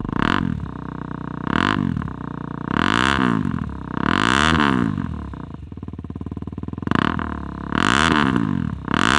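Single-cylinder 250cc engine of a KTM 250 Duke stunt bike being revved in short throttle blips, about six times, each rising and falling back to a steady idle between them.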